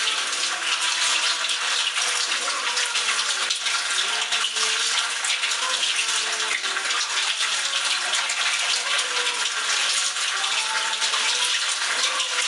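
Kitchen tap running steadily into a sink as cooked buckwheat noodles are rinsed under it in cold water and rubbed by hand to wash off the starch.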